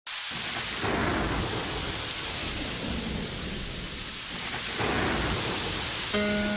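Steady heavy rain with two rolls of thunder, one about a second in and one near five seconds. Plucked guitar notes come in just before the end.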